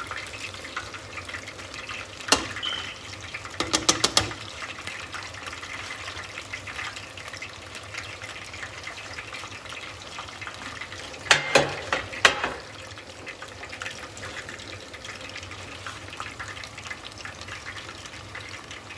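Battered chicken strips sizzling steadily in hot oil, with short clusters of sharp clicks from metal tongs about two seconds in, around four seconds in, and again around eleven to twelve seconds in.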